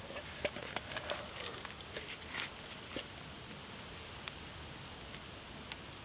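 Mashed hawthorn berries being scooped by hand out of a metal pot and pushed into a mesh bag: soft wet squishing with light clicks against the pot, busiest in the first three seconds, then only a few scattered ticks.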